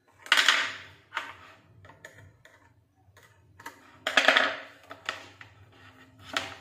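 Clatter and taps of hand tools and an aluminium LED strip being handled on a tabletop: a string of separate knocks, the two loudest about half a second and four seconds in, with smaller taps between.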